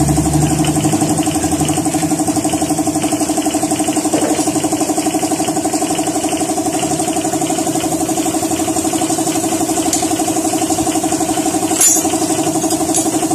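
An engine running steadily at idle with a fast, even pulse. A single sharp click about twelve seconds in.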